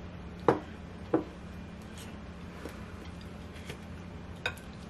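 Chopsticks clicking and tapping against ceramic dishes a handful of times, two louder clicks in the first second or so and fainter ones after, over a low steady hum.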